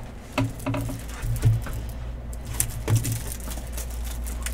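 Trading cards and a plastic card sleeve being handled and laid down on a table: a series of light, irregular taps and rustles.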